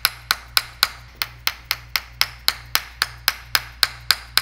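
Hammer tapping in a steady rhythm, about four sharp strikes a second, as a percussive chiropractic treatment of the neck muscles.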